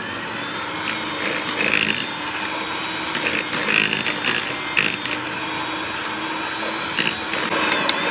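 Electric hand mixer running steadily, its twin beaters whipping butter, sugar and egg yolks into a smooth cake batter, with a few sharp clicks along the way.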